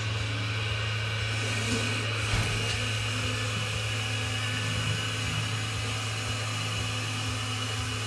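Steady whirring hum of a radio-controlled three-axle tipper truck's electric drive as it rolls slowly along, with a thin steady whine joining about two and a half seconds in, over a constant low hum.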